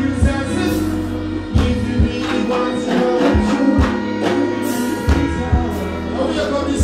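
Live reggae band playing through a concert PA, with bass and a steady kick drum, while a male singer sings over it.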